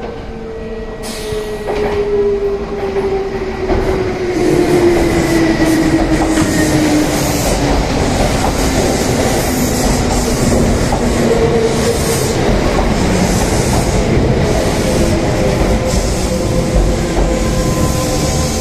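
Electric trains at a station platform: steady wheel-and-rail noise that builds about four seconds in, with a motor whine sliding slowly down in pitch over the first dozen seconds. Near the end the Kintetsu 21000 series Urban Liner pulls out along the platform.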